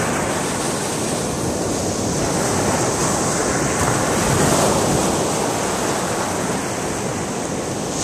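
Surf washing onto a beach: a steady rush of breaking waves that swells a little about halfway through, with wind buffeting the microphone.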